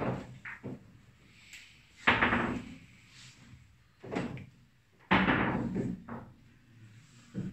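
Hard billiard balls knocking and clattering in a series of separate sharp impacts. The loudest two, about two and five seconds in, each trail off in a short rattle.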